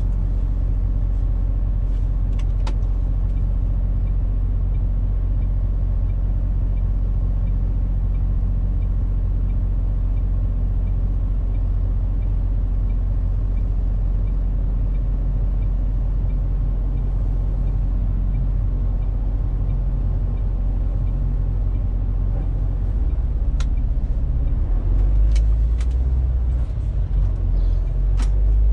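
MAN TGX 470 truck's six-cylinder diesel heard from inside the cab, idling steadily and then pulling away, louder and deeper from about 23 seconds in. A few faint clicks sound over it.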